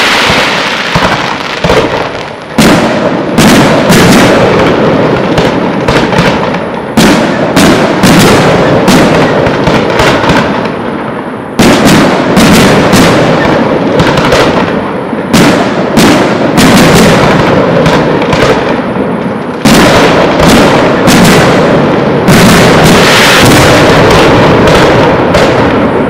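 Aerial firework shells bursting in rapid, overlapping volleys: a dense string of loud bangs. Fresh heavy bursts strike about every few seconds, and each dies away slowly before the next.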